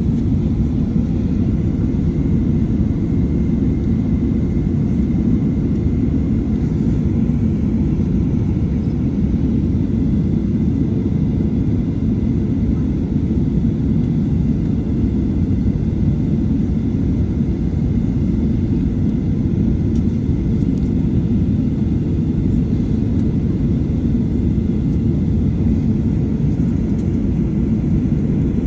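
Steady low rumble in the cabin of a Boeing 737-800 on the ground, its CFM56 engines running at low thrust while it waits in line for departure.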